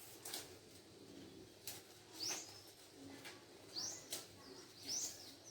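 Faint bird chirps: about three short, high calls that rise and then fall, with a few sharp clicks between them.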